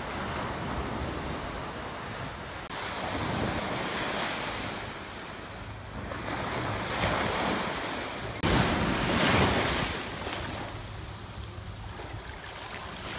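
Small surf washing up the beach, rising and falling in slow swells, with wind buffeting the microphone. The sound changes abruptly twice, about three and eight seconds in.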